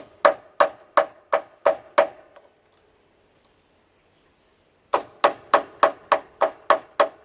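A screwdriver struck again and again, hard, about three sharp knocks a second, as it is driven in to pry a siliconed-in part off a CRT television. There is a short run of about seven knocks, a pause of nearly three seconds, then about eight more.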